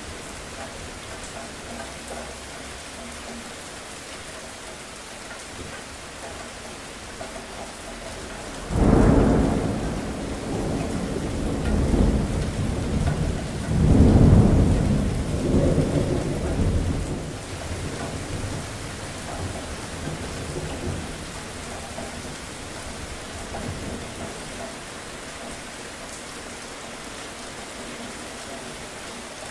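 Steady rain falling, with a sudden crack of thunder about nine seconds in that rolls on as a low rumble, loudest a few seconds later, and dies away over several seconds.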